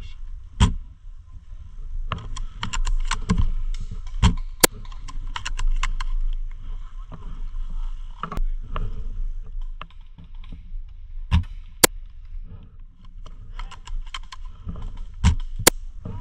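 Airsoft guns firing in a skirmish: sharp cracks, several loud ones coming in close pairs, over many smaller clicks and a steady low rumble of wind and movement on the microphone.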